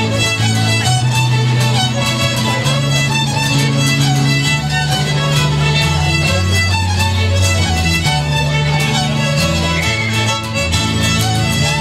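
Three fiddles playing a lively tune together, backed by acoustic guitar and keyboard holding sustained low notes that change every second or two.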